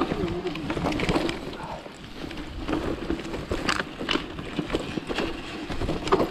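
Mountain bike rolling down a rough dirt trail: tyres on dirt and dry leaves, with frequent short knocks and rattles of the bike over bumps and wind noise on the microphone.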